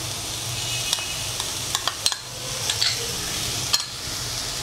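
Onions and ground ginger-garlic-green chili paste sizzling in oil in a kadai (wok) while a spatula stirs them, scraping and clicking against the pan a few times.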